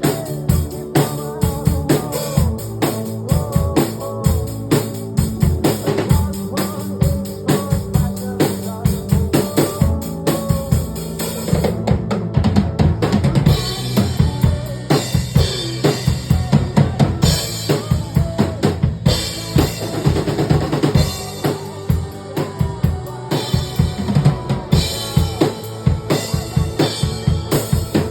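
Music with a drum kit playing a quick, steady beat over pitched instruments.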